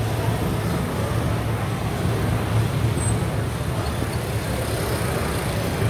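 Steady road traffic noise from motor scooters and cars passing close by, running at an even level throughout.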